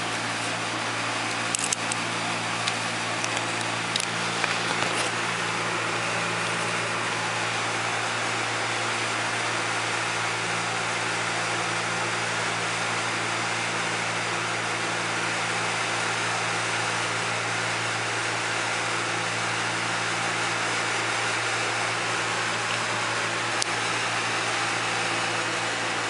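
Steady mechanical hum with a low drone, and a few light clicks in the first five seconds and once near the end as a glove box lock cylinder and its key are handled.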